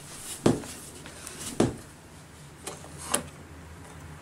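Four sharp clicks and knocks of the opened Shackman 102 camera's small metal parts being handled on a table, the loudest about a second and a half in.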